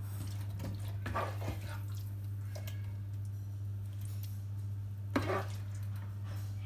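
Wooden spoon scooping a wet, cooked meat and vegetable mixture into a glass baking dish, with soft wet squishes and a few light knocks, the loudest about five seconds in. A steady low hum runs underneath.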